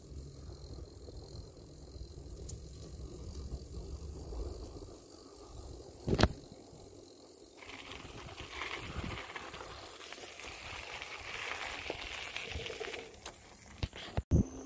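Bicycle tyres rolling, first with a low rumble over a wooden boardwalk, then a crunching hiss on a gravel path from about halfway in. A sharp knock comes about six seconds in and a few more clicks and knocks near the end.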